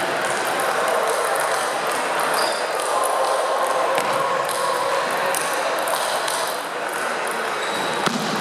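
Table tennis ball clicking sharply off the bats and table in a rally, a few distinct hits about 4 and 8 seconds in, over the steady echoing hubbub of a busy sports hall.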